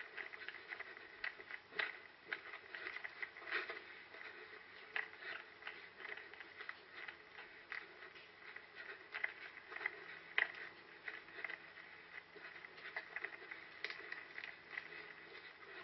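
Footsteps and the brushing of legs through vegetation as an orienteer runs over rough ground, heard through a head-mounted GoPro: quiet, irregular patter and crackling.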